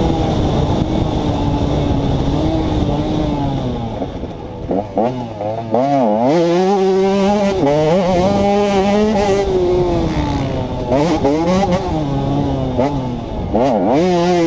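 A 2011 KTM 150 XC's two-stroke engine under riding load. It holds high revs, drops off about four seconds in, then swings quickly up and down in pitch through the middle, and again just before the end as the throttle is worked.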